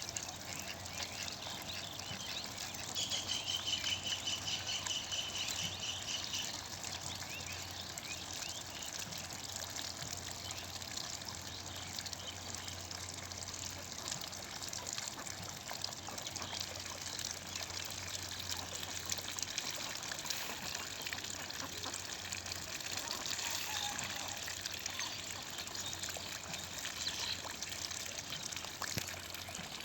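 Water trickling and splashing steadily. About three seconds in, a rapid high trill of short repeated notes runs for some three seconds.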